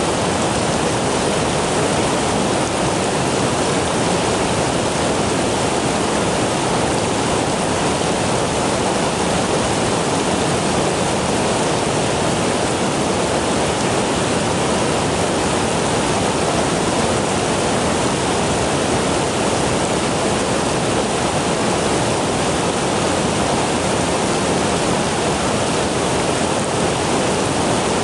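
Stream water running, a loud, steady rush with no breaks.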